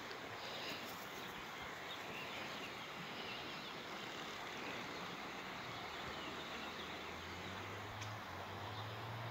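Steady outdoor background noise with a few faint high chirps in the first few seconds; a low steady hum comes in about seven seconds in.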